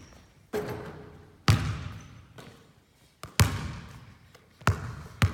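Basketball bouncing on a hardwood gym floor: about five separate bounces, unevenly spaced, each echoing in the large hall.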